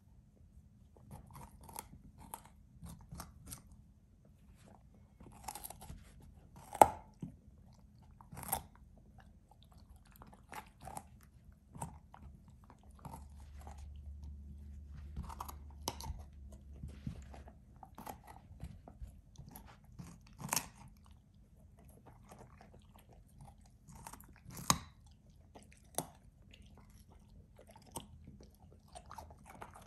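A puppy chewing and crunching a raw carrot: irregular crisp crunches with a few much louder single bites scattered among them.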